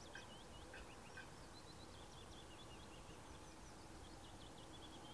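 Near silence with faint songbirds chirping in the background, a run of quick high chirps and short trills.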